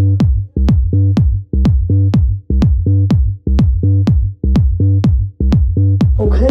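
Electronic dance music: a steady kick drum at about two beats a second over a deep, sustained bass line.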